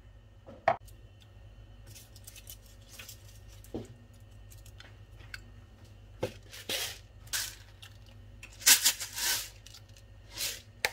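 Whole spices and salt dropped by hand into a stainless steel saucepan of vinegar for pickle brine: bay leaves, peppercorns, coriander seeds and cloves land in a series of short clicks and rustles, with the loudest cluster about nine seconds in.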